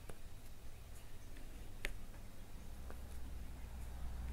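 Round diamond-painting drills pressed one at a time onto a sticky canvas with a drill pen: a few sparse, light clicks, the clearest a little before the middle.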